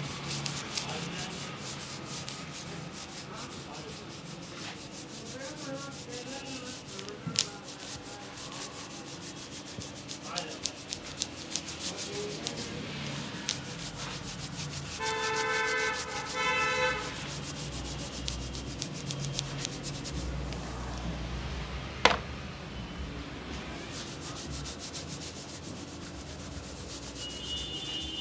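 A wire head massager and fingers rubbing through damp hair against the scalp: a dense, steady crackling and scratching of hair. About halfway through, a brief pitched honk-like tone sounds, followed a few seconds later by a single sharp click.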